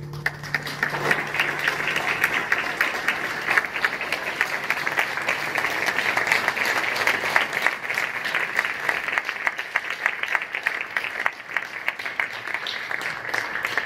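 Audience applauding: the clapping of many hands starts within the first second as the last piano and guitar chord dies away, and keeps up steadily.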